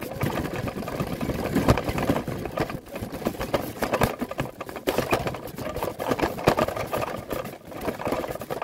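Fabric-sided pull wagon rolling along, its wheels and metal frame rattling continuously with many small knocks, heard from inside the wagon.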